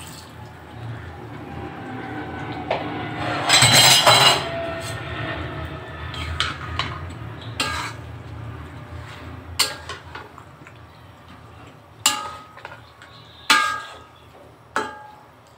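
Water poured from a mug into a pan of meat-and-potato curry, with a loud rush of splashing about three and a half seconds in. A metal spatula then stirs the curry, knocking sharply against the pan about six times.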